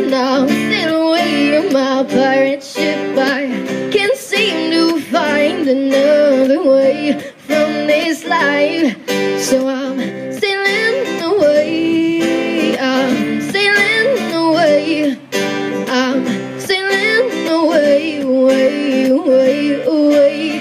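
A woman singing with her own acoustic guitar accompaniment, a live song amplified through a stage PA.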